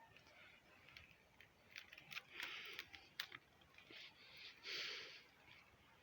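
Near silence, with a few faint clicks and short, soft hissy rustles.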